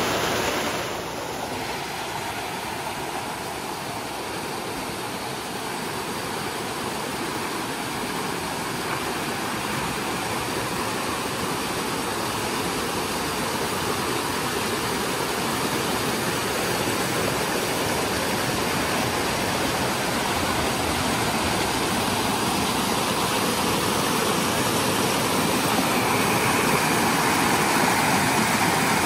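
A clear stream flowing: a steady rush of running water, slowly growing louder.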